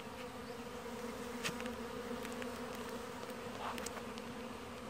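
Honey bees buzzing around a newly installed hive: a steady low hum with a fainter higher overtone. There are a few faint clicks, one a little over a second in.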